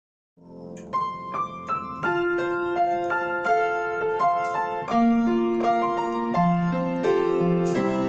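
Piano playing a slow melodic introduction, single notes struck and left ringing, starting about half a second in.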